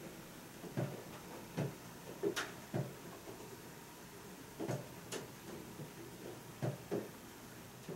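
Small plastic scoop tapping and pressing against a plastic candy-kit tray, about eight soft knocks at uneven intervals.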